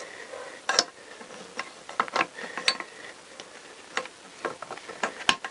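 Scattered sharp metallic clicks and ticks, the strongest about a second in, from a valve spring compressor being released on a Honda CBR1000F cylinder head as the valve spring, retainer and collets settle into place.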